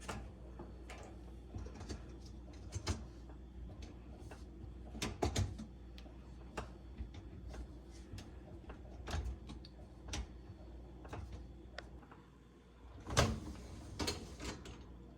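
Dishwasher's top rack being fitted back onto its slide rails and secured: scattered clicks and knocks, with a louder cluster of knocks near the end.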